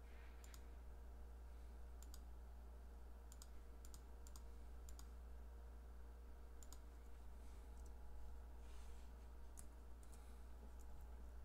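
Computer mouse clicking: about a dozen short, sharp clicks at irregular intervals, over a steady low electrical hum.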